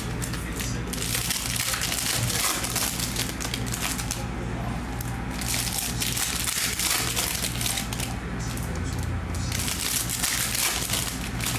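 Foil wrappers of Panini Mosaic basketball card packs crinkling as they are torn open and handled, easing off briefly about four seconds in and again about eight seconds in. A steady low hum sits underneath.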